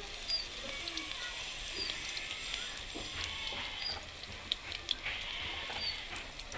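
Mustard-flower pakoras deep-frying in hot oil in a kadhai: a steady sizzle with scattered crackles.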